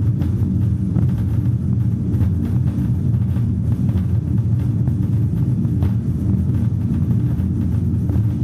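A steady low drone, likely from an ambient soundtrack: a dense rumble with several held low tones underneath and faint scattered clicks above.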